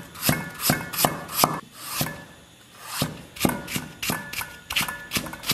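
Chinese cleaver slicing fresh ginger on a wooden chopping board: a few slow, sharp knocks of the blade on the wood, a short pause, then from about three seconds in a quicker, even run of cuts at roughly four a second as the slices are cut into strips.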